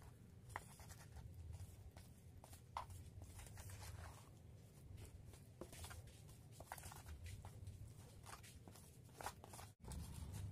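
Faint, irregular scraping and clicking of a flat metal blade stirring and scraping wet grey paste in a plastic basin.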